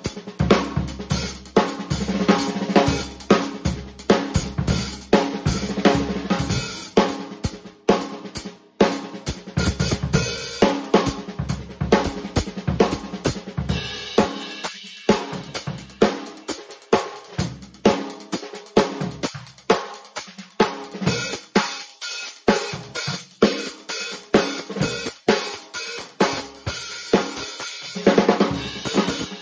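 Zildjian 14-inch A Custom hi-hats with a Projection bottom, 1040 g top and 1356 g bottom, played with maple 8A sticks in a steady drum-kit groove with snare and bass drum. From about halfway the bass drum mostly drops out and the hi-hats give a more continuous high sizzle. The kick comes back near the end.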